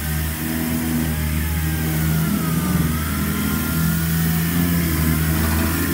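Shop machinery running: a steady low motor hum with a fainter higher whine that wavers up and down in pitch.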